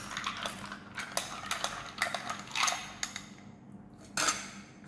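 A metal spoon stirring an iced coffee drink in a small glass, clinking irregularly against the glass and the ice cubes, with one sharper, louder clink about four seconds in.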